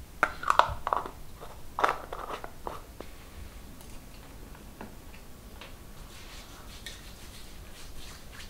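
Sharp clicks and knocks of plastic skincare bottles being handled and set down on a bathroom counter, bunched in the first three seconds. After that come fainter ticks as a hand presses the pump of a hand-cream dispenser.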